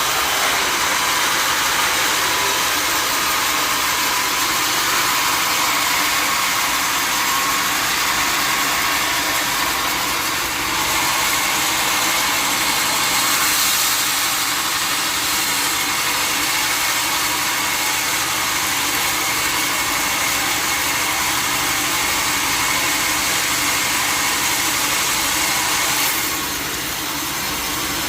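Sawmill machinery running steadily: a continuous machine hum under a high, even hiss, dipping slightly in level near the end.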